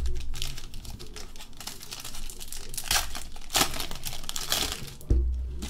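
Foil trading-card pack wrapper crinkling and tearing as the pack is opened by hand, with the loudest crackles about three to four seconds in. A dull bump near the end.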